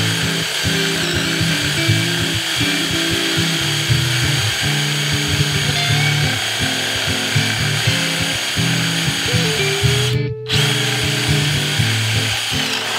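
DeWalt cordless drill boring a hole into a Douglas fir board, heard under background music. Everything cuts out for a moment about ten seconds in.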